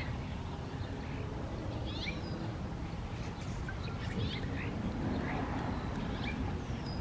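Several birds giving short, sharp calls, a few every second, as they squabble over scraps of dropped food. A steady low rumble runs underneath.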